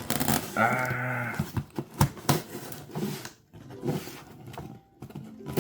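A mail package being opened by hand: tearing, crinkling and knocking of the packaging, with a short pitched squeal about half a second in.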